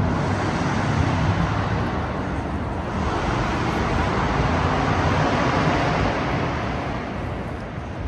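Steady city traffic noise, a continuous rumble and hiss of road vehicles, easing slightly near the end.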